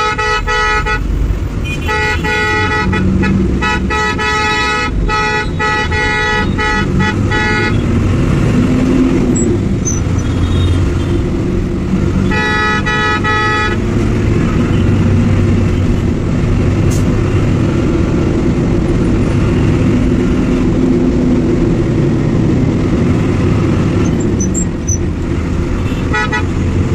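Coach bus on the road, its engine and road noise running throughout, with a multi-tone horn sounding in quick repeated blasts for the first several seconds, again briefly about halfway through, and once more at the very end. Between the horn blasts the engine pitch rises and falls.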